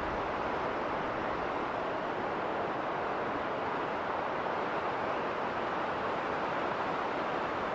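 Winter snowstorm wind blowing steadily: a constant rushing noise that holds the same level throughout, with no gusts or breaks.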